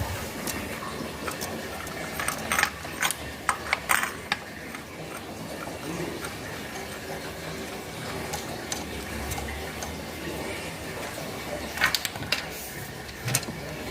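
Hand tools clicking and clinking on metal during engine work, with a cluster of sharp clicks a few seconds in and more near the end, over a steady hiss.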